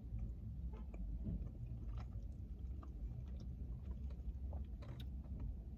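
Faint chewing of chicken wings, with small soft clicks scattered throughout, over a steady low rumble of a car's interior.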